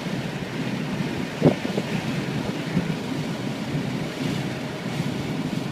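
Car running, heard from inside the cabin: a steady rumble of engine and road noise, with one short sharp sound about a second and a half in.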